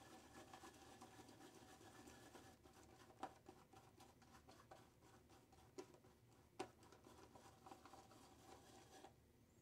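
Faint swishing and scratching of a boar-bristle shaving brush whipping thick, fairly dry lather in a bowl, with a few soft taps of the brush against the bowl. The whisking stops shortly before the end.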